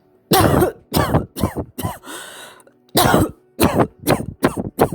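A person coughing with a dry cough, the kind that comes with early tuberculous pleurisy before fluid gathers between the pleural layers. It comes as two bouts of short coughs, four and then five, with a breath drawn between them.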